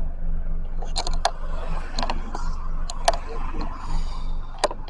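Steady low rumble of a car's running engine and road noise heard from inside the cabin, with several sharp, irregular clicks and knocks scattered through it.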